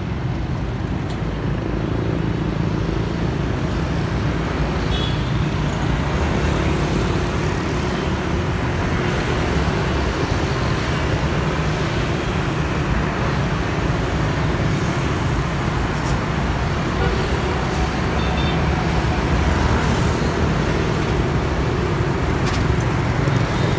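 Dense urban street traffic, mostly motorbikes and scooters, passing steadily with a continuous engine hum and tyre noise. It grows slightly louder as the stream of riders thickens.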